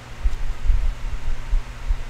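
Dull low thumps and rumble of handling noise as a stack of trading cards is shuffled in the hands over the desk, over a steady low hum.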